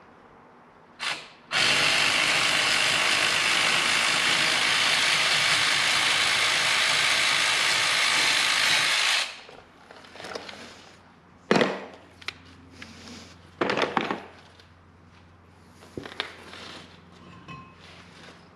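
A power tool runs steadily for about seven and a half seconds after a brief first burst, then stops. A few sharp metal knocks and clanks of tools follow.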